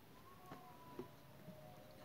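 Near silence: faint room tone with a few soft ticks from paper strips being handled and woven, about half a second apart.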